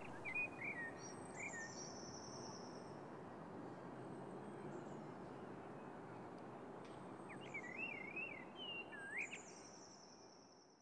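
Outdoor background noise with songbirds calling: two bouts of whistled, warbling phrases with higher trills, one near the start and one about three-quarters through, over a steady hum, fading out at the end.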